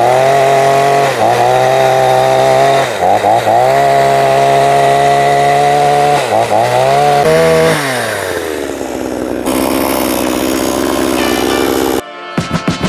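Chainsaw running at high revs as it cuts logs, its pitch dipping briefly several times under the load. About eight seconds in it winds down to a slower, lower running, then cuts off suddenly near the end.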